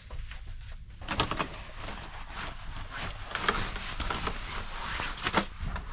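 Rustling and clattering of things being handled and moved, with a few sharp clicks and knocks.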